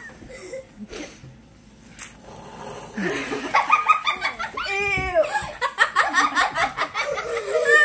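Laughter breaking out about three seconds in and carrying on in quick, repeated pulses, with one loud rising-and-falling laughing voice about two seconds later.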